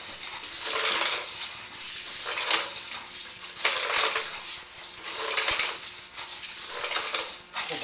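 Sewer inspection camera head and push rod scraping and clattering against the inside of a drain pipe. The sound comes in rhythmic surges about every second and a half, as the rod is fed in stroke by stroke.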